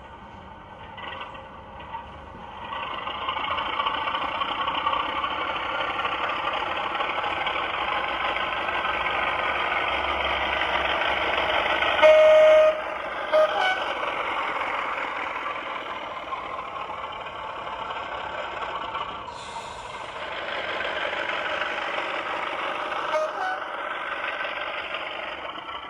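Class 33 diesel locomotive sound played by a model's DCC sound decoder through its small onboard speaker. The engine notches up about three seconds in and runs on under power. Two short horn blasts come about halfway, and the engine sound drops briefly and builds again near the end.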